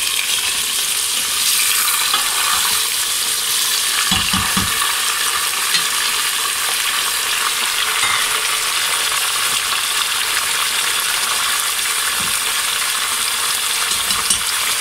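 Raw beef pieces sizzling steadily in hot oil with lightly browned onions in a pressure cooker, with a few low knocks about four seconds in.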